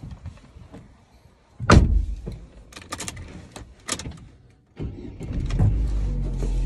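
Car door slammed shut about two seconds in, the loudest sound, followed by a few sharp clicks. About five seconds in the car's engine starts and settles into a steady idle.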